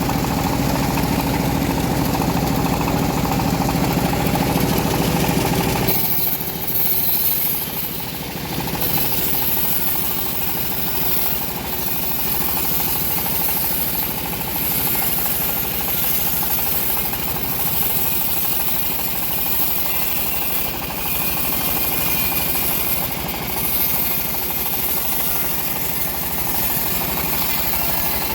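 Homemade band sawmill running steadily. About six seconds in, the low engine note drops back and a high hiss takes over.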